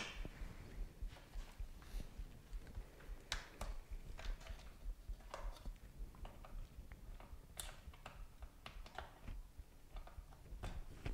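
Light, irregular clicks and taps of screwdriver bits and hand tools being picked up and set down on a tabletop.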